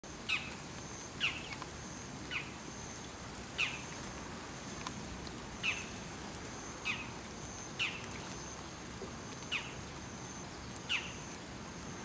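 Bull-headed shrike giving its high-pitched territorial call (takanaki): short, sharp calls that each fall quickly in pitch, repeated about once a second, some ten in all.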